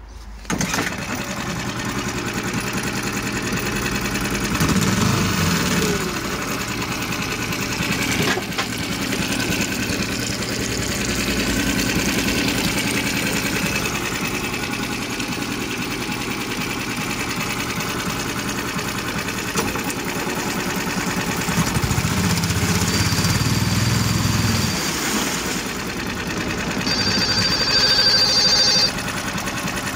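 2019 Evinrude 6 hp four-stroke outboard motor running steadily, the sound swelling briefly about five seconds in and again around twenty-two seconds. A high-pitched ringing tone joins near the end.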